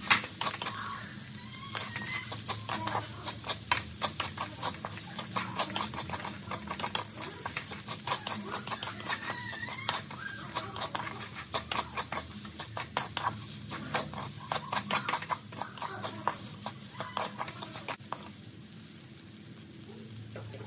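Wooden spatula scraping and knocking against a metal pan as rice is stir-fried: a quick, uneven run of scrapes and taps that stops about eighteen seconds in, over a steady low hum.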